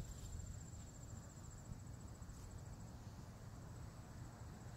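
Faint, steady high-pitched insect trill over a low background rumble.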